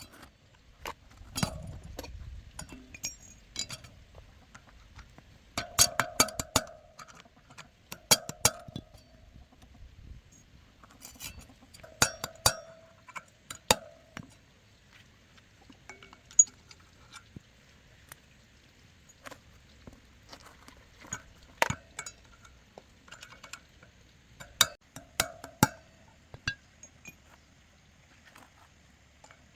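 Sharp metallic clinks and taps in irregular clusters every few seconds, some leaving a short ringing tone, as metal parts are struck or handled.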